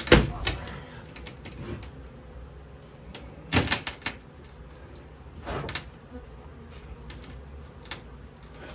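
Honeybees buzzing steadily from a colony under a shed floor, with a few sharp knocks and scrapes of plywood as a cut floorboard is worked loose: the loudest right at the start, others about 3.5 and 5.5 seconds in.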